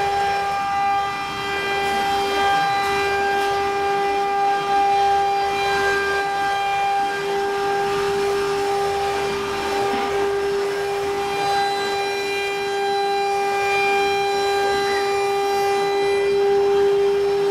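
CNC wood router running: a steady high-pitched whine with several overtones, over a rushing machine noise, unchanging throughout.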